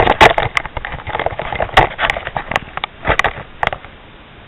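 Irregular crackling and clicking handling noise as a drink can is set up as a target, stopping about three and a half seconds in.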